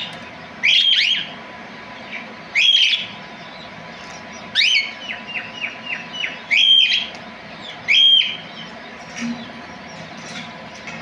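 Parrot calling: loud, short, sweeping whistled squawks repeated every one to two seconds, with a quick run of about six short chirps about five seconds in.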